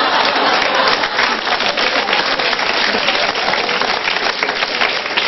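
Studio audience applauding, a dense steady clatter of many hands clapping after a punchline.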